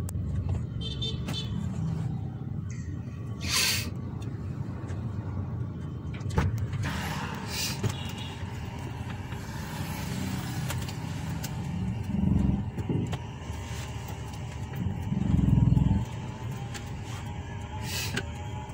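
Steady low rumble inside a car's cabin, engine and road noise, with a few louder low swells, the loudest about fifteen seconds in.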